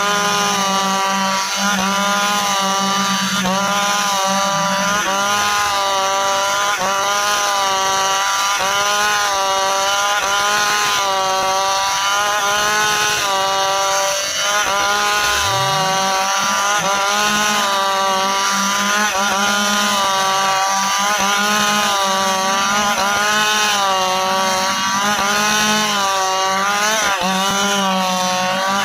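Stihl chainsaw cutting through dry ipê hardwood, its engine pitch rising and falling about once a second as the hard wood loads the chain. About halfway through the pitch sags low and then climbs back up.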